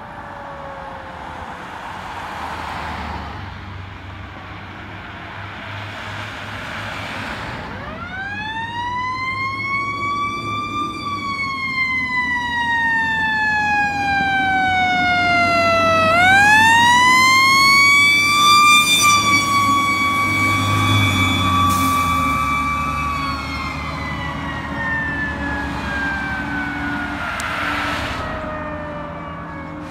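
E-One fire engine siren winding up to a wail about eight seconds in. The pitch sinks slowly, winds up again and holds for several seconds, then falls gradually toward the end, over the low running of the truck's engine and passing traffic.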